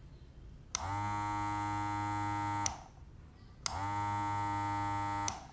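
Background music: two identical held synthesizer notes with a buzzy tone, each about two seconds long, starting with a click and a slight downward slide in pitch, one beginning under a second in and the next about three seconds later.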